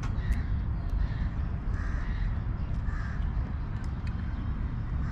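Crow cawing several times over a steady low rumble of wind on the microphone.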